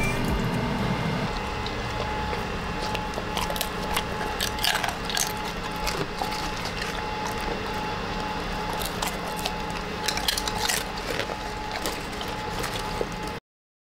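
Golden retriever crunching on crisp fried sweet potato chips: irregular crunches and clicks, with background music dying away in the first second. The sound cuts off abruptly near the end.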